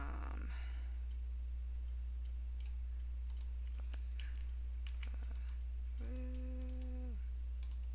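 Scattered computer mouse clicks and keystrokes over a steady low electrical hum on the microphone. About six seconds in there is a brief held hum from a voice, lasting about a second.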